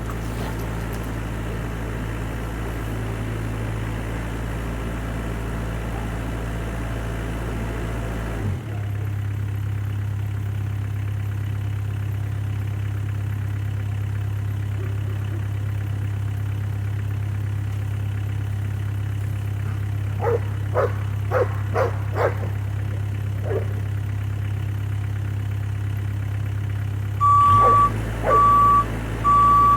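Bobcat E26 mini excavator's diesel engine running steadily, its note changing about eight seconds in. A dog barks several times in quick succession about two-thirds of the way through. Near the end the machine's travel alarm starts beeping steadily.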